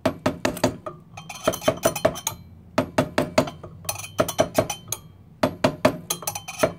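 Rapid light hammer taps on an aluminium GY6 big-bore cylinder, driving it down over the piston onto the crankcase. The taps come in quick bursts of several strikes with short pauses between.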